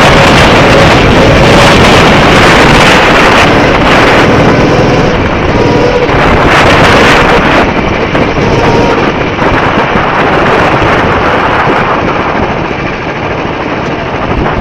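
Go-kart engine running under a heavy wind roar on the microphone, loud throughout and easing off a little in the second half.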